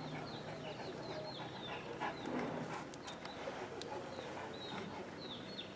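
Faint panting from a Pakistani bully dog, with small birds chirping repeatedly in short falling notes throughout.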